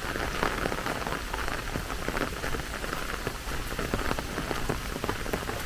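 Steady rain falling, with many separate drops striking close by in quick succession.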